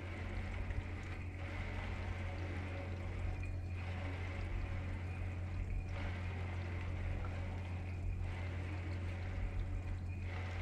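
Washing machine churning water, swelling and easing in a slow cycle about every two seconds, over a steady low hum.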